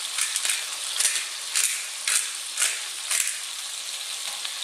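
Pepper mill grinding black pepper in quick twists, about two a second, over the steady sizzle of tuna steaks searing in olive oil. The grinding stops about three seconds in, leaving the sizzle alone.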